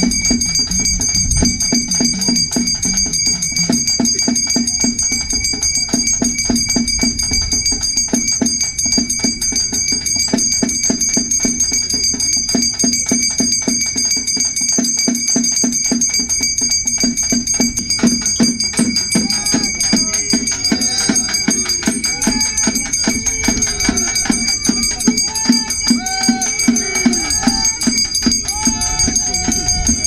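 Music: fast, steady drumming with jingling, rattling percussion and a constant high ringing. Past the middle a melody with arched, gliding phrases joins the drumming.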